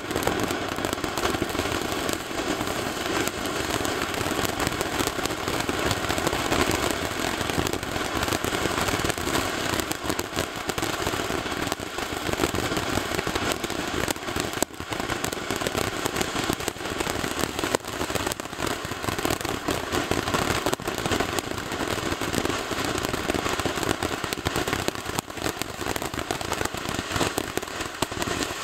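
Svea 'San Francisco' multi-effect firework fountain burning: a steady, hissing spray of sparks, with scattered sharp crackles and pops from small bursting stars throughout.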